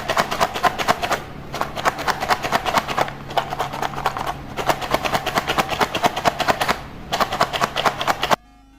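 A Blokees Transformers blind box shaken hard by hand, the plastic figure parts rattling inside it in rapid runs of clicks with short pauses. The rattling stops suddenly near the end.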